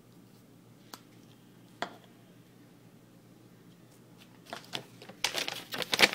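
Paper receipt and paperwork being handled, rustling and crinkling. Mostly quiet at first with two faint clicks, then the crinkling starts about four and a half seconds in and is loudest near the end.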